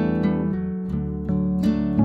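Background music: an acoustic guitar picking a melody, a new note about every half second.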